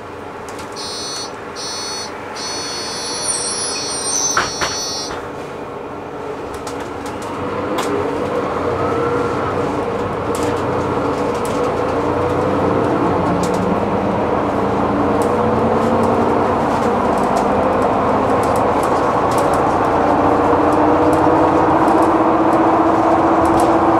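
Inside a city bus: a high electronic beeping for the first few seconds, then the bus's engine and drivetrain grow louder and their pitch slowly rises as the bus gathers speed.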